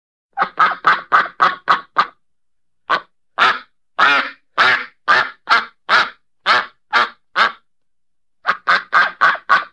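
Duck quacking in runs: a quick string of about seven quacks, then a slower string of about ten quacks at roughly two a second, then another quick string starting near the end.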